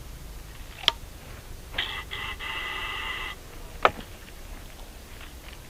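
Handling a PVC toy gun while readying it for the next shot: a sharp click, then a steady high-pitched squeal for about a second and a half, then another sharp click.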